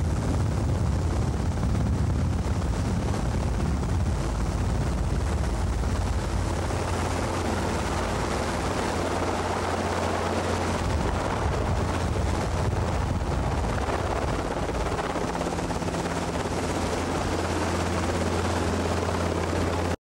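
Robinson R22 helicopter heard from on board: the steady drone of its piston engine and two-blade rotor, cutting off abruptly at the very end.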